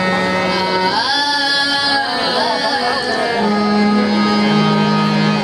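Qawwali: a girl singing a solo line into a microphone over long, steady held notes of harmonium accompaniment.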